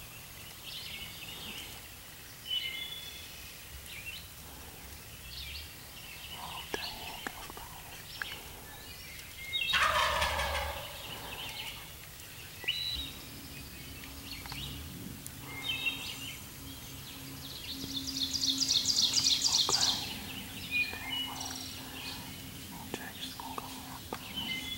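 Wild turkey gobbler gobbling close by: one loud gobble about ten seconds in that falls in pitch, with small songbirds chirping throughout. A loud, high, rapid rattling call follows about two-thirds of the way through.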